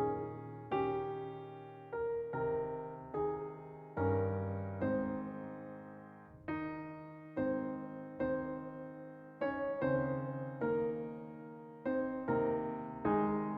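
Background piano music: slow single notes and chords, each struck and left to ring and fade before the next.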